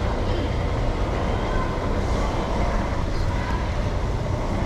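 Steady low background rumble with no distinct knocks or cuts, of the traffic-noise kind.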